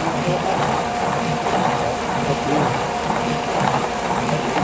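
Electric paddle mixer running steadily, its motor giving a steady hum while the paddle churns recycled rubber granules and binder in a plastic tub, with the continuous noisy swish of the granules.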